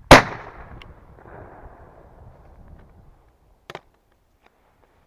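A single shotgun shot at a high-flying woodcock, its report trailing off for about a second. A much fainter sharp crack comes about three and a half seconds later.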